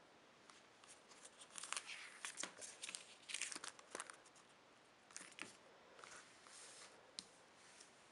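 Crinkling and rustling of plastic sleeving and card as a CD package is handled and its contents are pulled out, with a few light taps. The handling is busiest in the first half and thins out to occasional rustles later.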